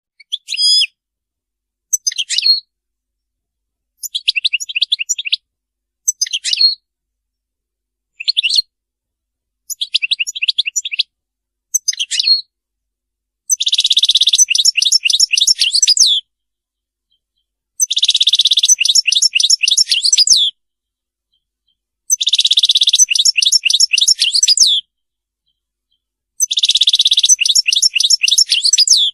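European goldfinch song: short bursts of high twittering notes every two seconds or so, then, from about halfway, longer phrases of fast trilled twitters about every four seconds, with dead silence between the phrases.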